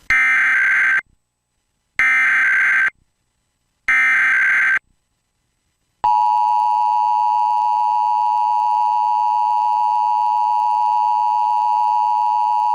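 Emergency Alert System header: three bursts of SAME data tones, each about a second long with a second's gap between them. About six seconds in, the steady two-tone EAS attention signal starts and holds, announcing an Amber Alert.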